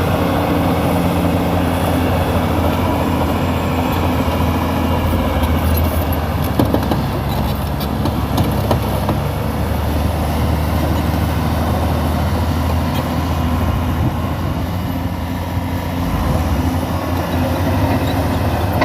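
Crawler dozer's diesel engine running steadily, its note shifting at about five seconds in and again near the end, with a few brief clanks in between.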